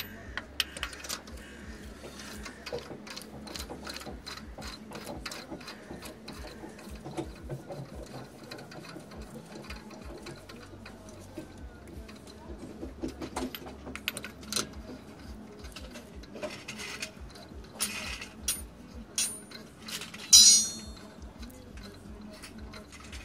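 Socket ratchet on an extension clicking in short runs as spark plugs are wound into the cylinder head, with a louder metallic clink near the end.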